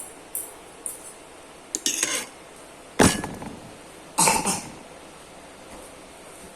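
Eating sounds: cutlery clinking and knocking against a dish a few times, the loudest a sharp knock about three seconds in, with short bursts of mouth noise from eating between the knocks.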